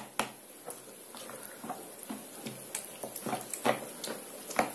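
Metal spoon stirring zucchini batter in a plastic bowl: irregular clicks and knocks of the spoon against the bowl, a few a second, with a louder knock near the start and another near the end.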